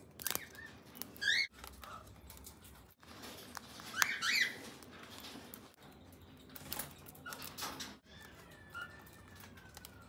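Cockatiels giving scattered short chirps, with a cluster of them about four seconds in, between a few sharp clicks.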